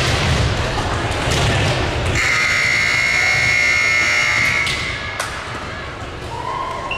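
A few thuds, then about two seconds in a gym scoreboard buzzer sounds one steady, loud tone for about two and a half seconds and cuts off.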